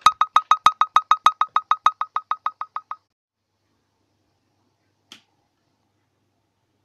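A rapid train of short electronic beeps, about eight a second, fading out about three seconds in. Then silence, with one faint click a couple of seconds later.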